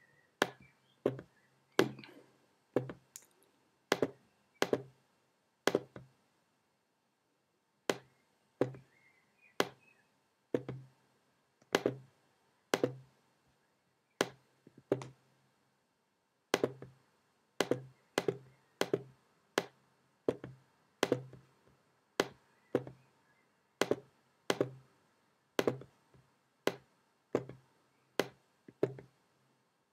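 Sharp single computer clicks at an irregular pace, about one every half-second to a second, with a couple of short pauses: clicks placing the points of a Bezier spline one by one.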